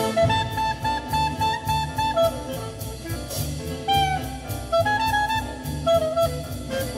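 Big-band swing jazz played very loud through a custom car audio system, heard inside the car: saxophone and brass lines over a steady low drum beat, at about 105 to 114 dB on an SPL meter.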